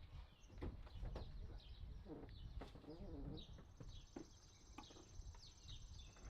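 Faint bird chirps, short and repeated, over a low steady rumble, with a thin high whine from about halfway through.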